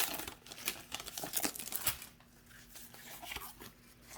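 Foil booster-pack wrapper crinkling and tearing as it is ripped open by hand, busiest in the first two seconds, then lighter crackles of handling.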